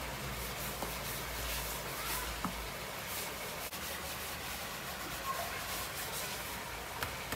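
Soft rustling and scraping as a banana leaf is rubbed through grated coconut in a plastic basin and the coconut is sprinkled over the leaves. A low hum sits underneath for the first couple of seconds.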